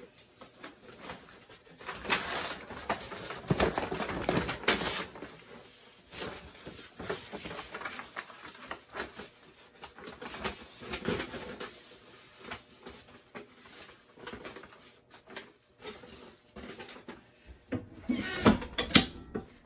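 Irregular rustling and handling noise close to the microphone, with scattered soft knocks: paper, fabric and body movement as the stole is carried over to the heat press. It is louder about two to five seconds in and again near the end.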